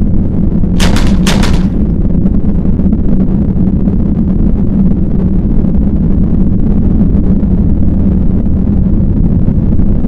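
A loud, steady low rumble, with two sharp cracks about half a second apart near the start.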